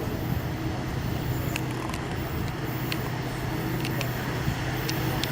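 Steady low hum of a running locomotive, with a few sharp clicks scattered through it.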